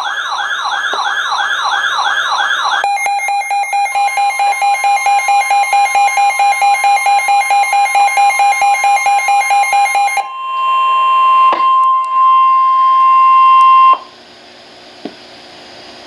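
Electronic alert tones in a sequence. First a siren-like warble sweeps up and down about three times a second. Then a tone beeps about four times a second while a steady higher tone joins in. Last the steady tone sounds alone and cuts off suddenly near the end.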